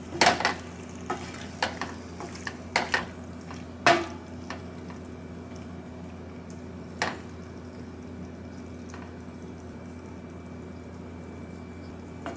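A few short clicks and small knocks, most of them in the first four seconds and one more a few seconds later, over a steady low hum.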